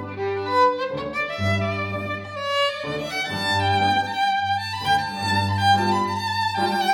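Live classical chamber music: a violin plays a melody over piano and low held bass notes.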